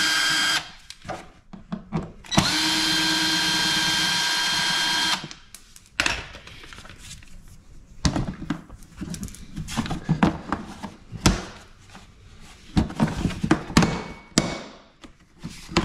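Ryobi cordless drill/driver running in two bursts, a short one and then a steady whine of about three seconds, backing screws out of the generator's plastic side access panel. After that come scattered clicks and plastic knocks as the panel is worked loose and lifted off.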